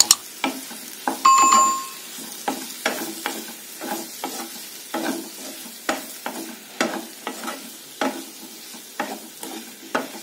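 A spatula stirring and tossing boiled potato pieces in masala in a nonstick kadai, in repeated scraping strokes about once or twice a second, over a light sizzle of frying. A sharp click comes at the very start, and a short, clear ringing tone sounds about a second in.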